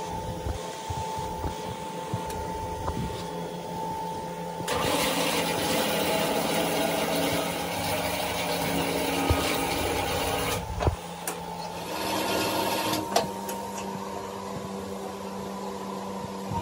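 Small hand-operated plastic moulding machine: a steady motor hum, metal clicks and clanks as its levers and mould clamp are worked, and a loud hiss that starts about five seconds in and cuts off sharply about six seconds later, with a shorter hiss soon after.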